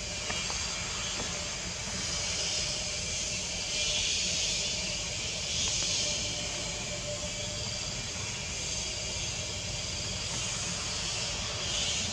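Steady, high-pitched insect drone of a tropical forest, swelling a few times, over a low rumble.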